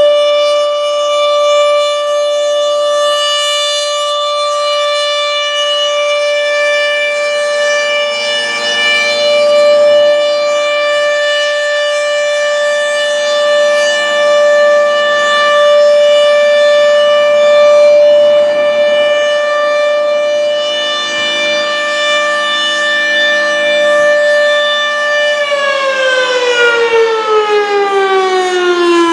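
Federal Signal Thunderbolt 1000 outdoor warning siren sounding its steady alert tone, then, about 25 seconds in, falling in pitch as it winds down. The top two horn bolts are missing, which is taken to explain why it is not very loud.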